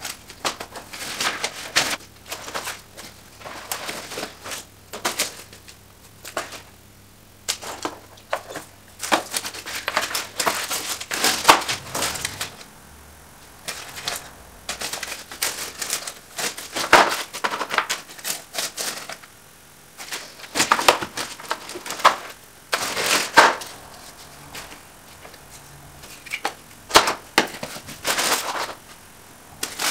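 Papers and small household items being handled and sorted by hand: irregular rustling, crinkling and light clicks and knocks, coming in clusters with short pauses between.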